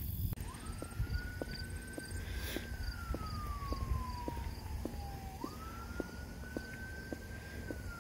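A distant siren wailing slowly up and down: it rises for about two seconds, falls for about three, then jumps back up about five seconds in and holds before falling again. Under it are regular footsteps, two to three a second, and a steady low rumble.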